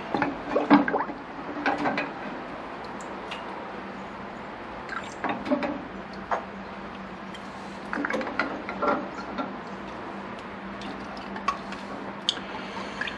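Small metal carburettor parts being placed by hand into the fluid-filled stainless steel tank of an ultrasonic cleaner: splashes and clinks of metal in liquid, in several short bursts.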